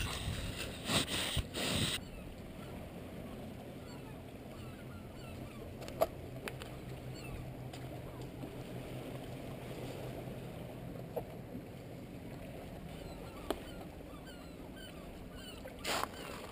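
Wind buffeting the microphone in several gusts at the start and again near the end, over a faint steady low hum, with a few sharp clicks of footsteps on rock.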